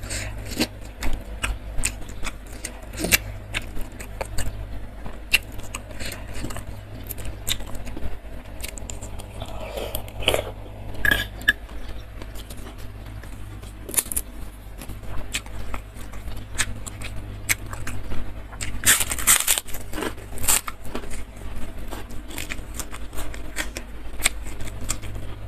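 Close-up eating sounds of fried tofu in spicy sauce: wet chewing and mouth clicks, with a spoon scraping and clinking on a stone mortar bowl. About three quarters of the way through comes a short flurry of crunching, as a puffed cracker is bitten, all over a steady low hum.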